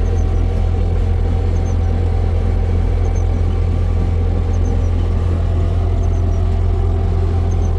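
Car driving, heard from inside the cabin: a steady low engine and road rumble that does not change, with a faint small tick recurring about every one and a half seconds.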